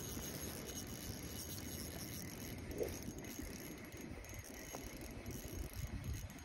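Spinning reel being cranked steadily, a light mechanical rattle of the gears as line is wound in on a lure retrieve.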